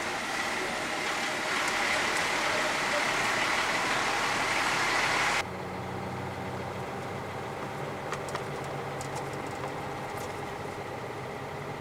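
Corn combine harvester running with a loud, dense mechanical din. About five seconds in, the sound cuts off abruptly to a quieter, steady engine hum with a few faint clicks.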